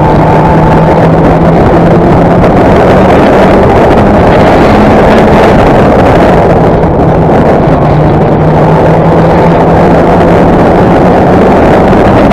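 Race car engine running loud at high revs on track, heard from the onboard camera, with a steady tone that shifts a little in pitch now and then.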